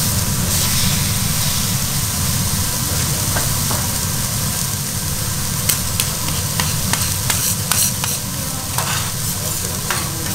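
Cubes of beef steak sizzling on a hot iron griddle plate: a steady frying hiss with sharp crackling pops from about halfway through, over a low steady hum.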